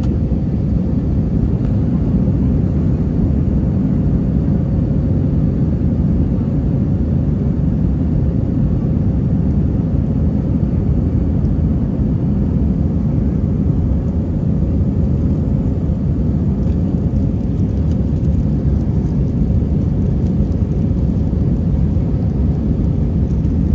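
Steady low rumble of cabin noise inside an Airbus A319 with IAE V2500 engines, heard from a seat behind the wing, with a faint steady hum above it.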